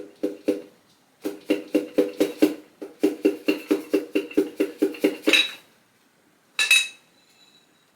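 A rapid, even run of metal-on-metal taps, about five a second, each leaving a short ringing tone, from work on engine parts while a piston is removed from an LS1 block. The tapping stops abruptly, and a single clink of metal follows near the end.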